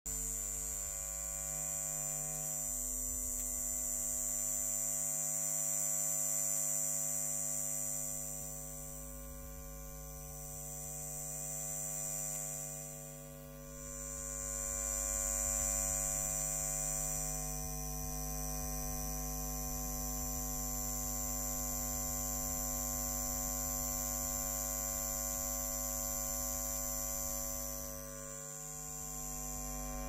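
Steady high-voltage electrical hum and buzz, like that of a power-line tower, made of many steady tones layered together. The level sags briefly a few times, most deeply near the middle.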